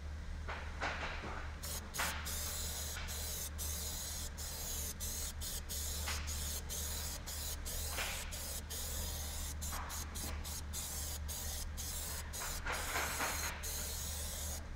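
Aerosol can of spray adhesive (3M General Trim Adhesive) hissing as it is sprayed onto a boat's hull, starting about a second and a half in and broken by many brief pauses as the nozzle is pressed and released, over a steady low background hum.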